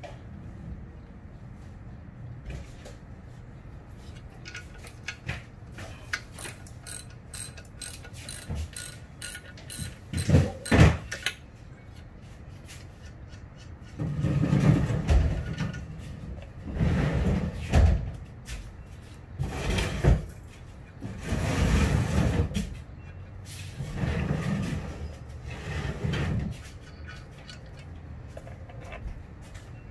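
Hands working on a metal catalytic converter and exhaust manifold assembly: scattered light clicks, a loud clank about ten seconds in, then a series of rough scraping strokes, each about a second long.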